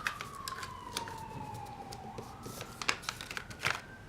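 Fire truck siren wailing faintly: one tone falls slowly for about two seconds, then starts to rise again. Sharp clicks and rustles from handling small items sound over it.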